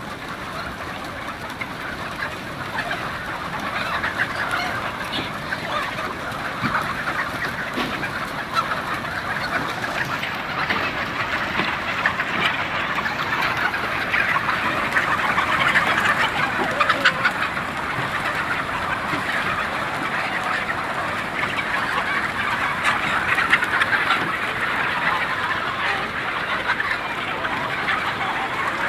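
A large flock of chickens, hens and roosters, all clucking and calling at once in a dense, continuous din.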